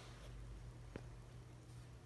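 Near silence: a low steady hum under faint hiss, with one faint click about halfway through.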